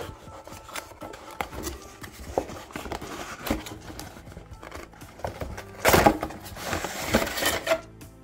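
Cardboard retail box being opened by hand: the end flap is pulled open and the cardboard tray inside is slid out, with small clicks and scraping rustles. The loudest scraping comes about six seconds in, and again around seven seconds in.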